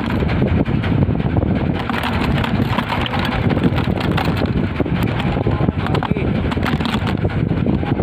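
Wind buffeting a phone's microphone on a small fishing boat at sea, over a steady low rumble, with irregular gusty crackles throughout.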